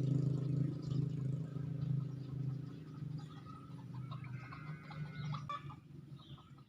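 A chicken clucking a few times in the second half, over a steady low engine hum that fades away.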